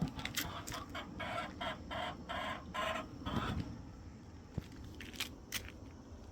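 A chicken clucking in a rapid run of about a dozen short calls, roughly four a second, for about three seconds, then going quieter.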